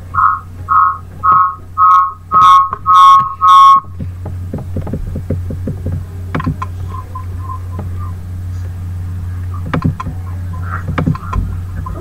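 A short two-note beep repeating about twice a second, growing louder over the first four seconds and then stopping. After it comes a steady low hum with a few scattered clicks.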